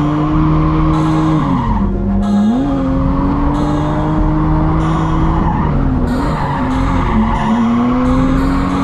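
Lexus IS300's inline-six engine held high in a drift, heard from inside the cabin, with tyres skidding and squealing. The revs dip sharply about two seconds in, climb back, and waver again near the end as the car transitions.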